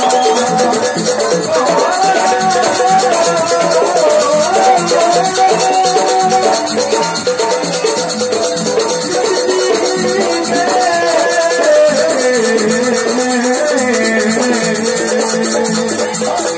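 Loud live jaranan campursari music: a fast, dense rattling percussion rhythm under a wavering melody line.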